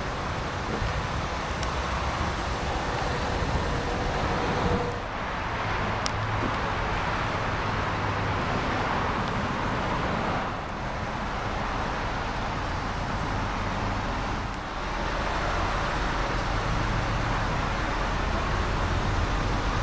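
A 2004 Nissan Pathfinder's 3.5-litre V6 idling steadily, heard from outside the vehicle, over steady outdoor background noise.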